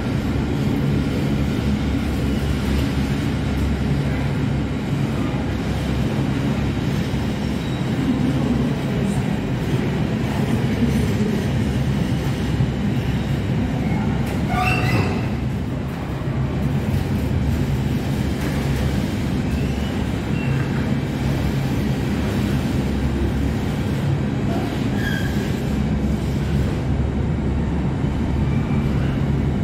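Container freight train wagons rolling past, a steady rumble of steel wheels on rail. A brief rising wheel squeal comes about halfway through, with a couple of fainter squeaks later.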